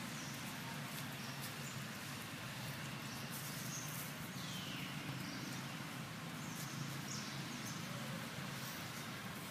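Outdoor ambience: a steady low hum under a light hiss, with short high chirping calls now and then, one of them falling in pitch about four seconds in.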